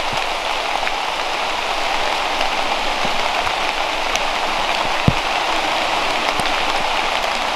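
Heavy rain pouring down steadily, a dense hiss, with a few sharp taps scattered through it, the strongest about five seconds in.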